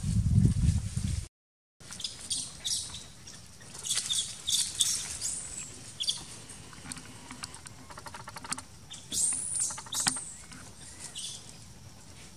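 Scattered short, high-pitched animal chirps and squeaks, with a rapid ticking run about eight seconds in and a rising-then-falling chirp about nine seconds in. A loud low rumble at the start cuts off abruptly after about a second.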